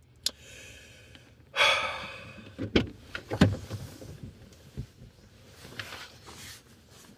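Someone shifting and climbing out of a car seat: a click, a loud breathy rush about a second and a half in, then several dull thumps and rustles.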